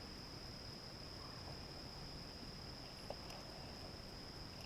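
Insects in a steady, unbroken high-pitched drone, with a few faint clicks.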